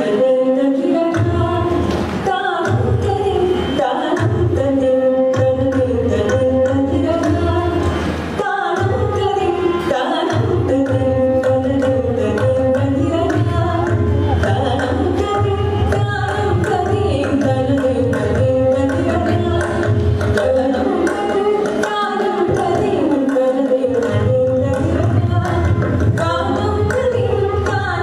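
Carnatic concert music: a woman singing a thillana in raga Maand, with violin following the melody, mridangam drumming and a steady tanpura drone.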